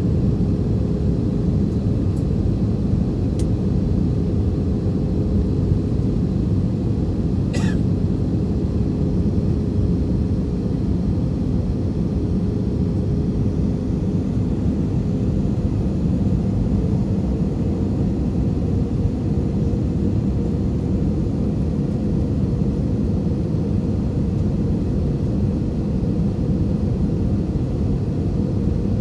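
Steady jet airliner cabin noise at a window seat: the low rumble of engines and airflow with a steady hum running through it, during the approach to landing. One brief sharp sound about eight seconds in.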